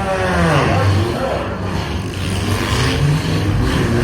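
Engines of several compact demolition-derby cars revving at once, their pitches rising and falling over one another.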